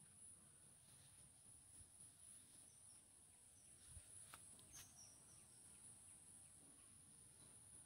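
Near silence: a faint steady high-pitched hiss with a few faint bird chirps, and two soft clicks about four and a half seconds in.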